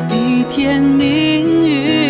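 Slow, gentle music with a held melody line that wavers in pitch near the end.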